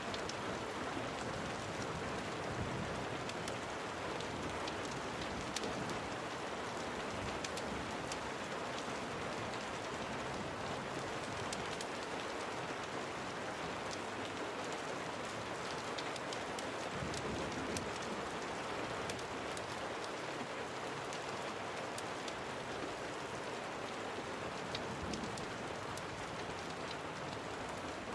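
Steady rain falling, with scattered sharp crackles from a wood fire burning in a fireplace.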